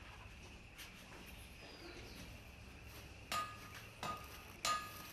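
Sharp metallic clinks, each with a short ringing tone: one about a second in, then three more in quick succession near the end, over a faint steady background.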